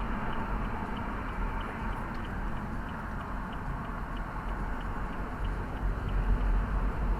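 Road and engine rumble inside a moving car's cabin, with the turn-signal indicator ticking steadily at about two to three ticks a second.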